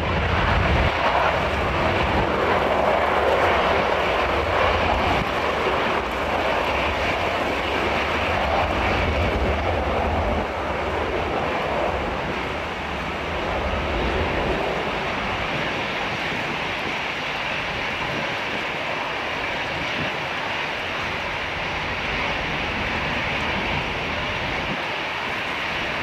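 Boeing 737-400's CFM56 turbofan engines running at low thrust while taxiing: a steady jet whine and rush, with a low rumble that eases after about ten to fifteen seconds.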